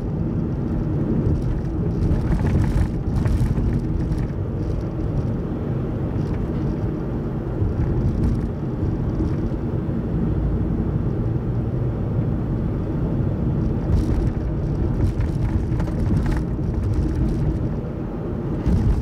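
Car driving at road speed, heard from inside the cabin: a steady low rumble of tyres and engine with a faint hum, and a few light knocks from the road.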